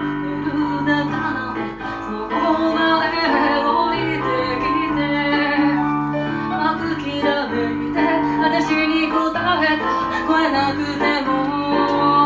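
Music: a song with a melodic vocal line sung over instrumental backing with a steady bass.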